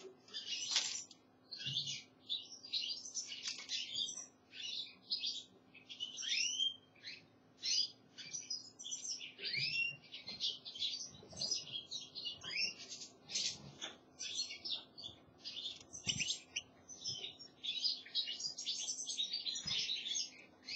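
European goldfinch twittering song: a rapid, continuous run of short high chirps with the odd rising whistled note.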